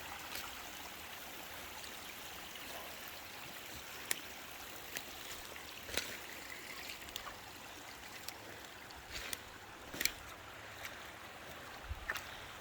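Faint, steady rush of rain runoff trickling and flowing in a small stream, with several sharp clicks and snaps scattered through it.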